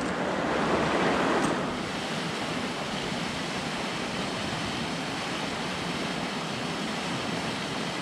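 Steady rushing of a mountain stream's water, a little louder in the first second or so.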